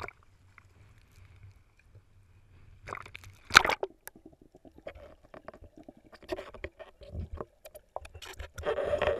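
Water splashing and sloshing over a camera as it is plunged under the sea surface, then muffled underwater sound: a steady low hum with many small clicks and bubbles. A second loud rush of water near the end, as the camera breaks the surface again.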